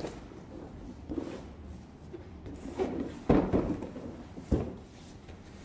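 Large cardboard box being handled and tipped over onto its side, with two dull knocks as it comes down on the table, the louder one a little past halfway.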